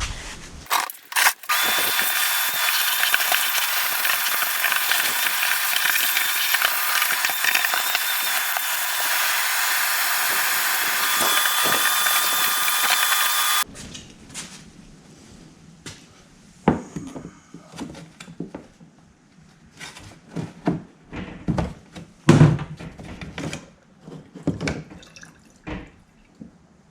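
A shop tool runs steadily with a hissing whir for about twelve seconds and then stops abruptly. Scattered clicks and knocks of parts and tools being handled follow.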